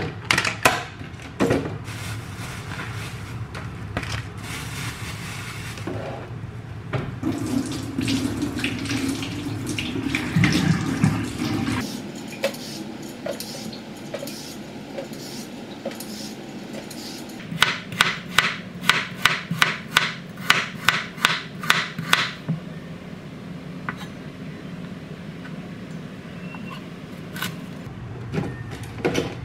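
Water running at a kitchen sink, with a run of quick, evenly spaced knocks about two-thirds of the way in, roughly four a second for several seconds.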